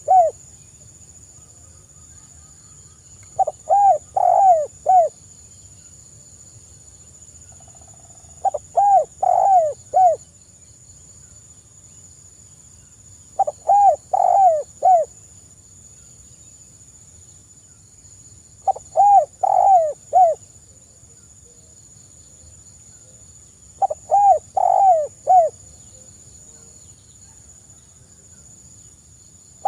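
Spotted dove cooing: a phrase of four or five quick coos, repeated five times at steady intervals of about five seconds.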